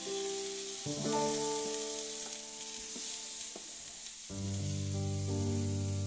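Slices of elephant yam shallow-frying in vegetable oil, with a steady sizzle. Soft background music of held notes plays over it.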